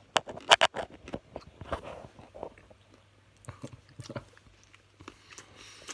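A person biting and chewing a piece of chili chocolate, with a cluster of sharp mouth clicks in the first second, then scattered softer chewing sounds.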